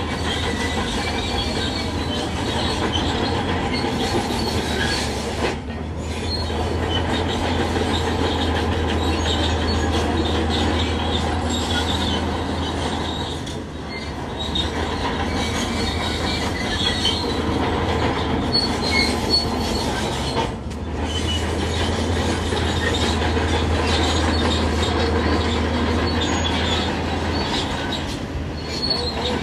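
Shantui crawler bulldozer working: heavy diesel engine running steadily with the squealing and clanking of its steel tracks.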